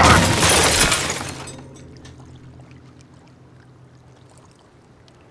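A loud rushing, crashing burst as a wooden crate bursts open and banknotes fly out. It lasts about a second and a half, then fades away to a faint low drone.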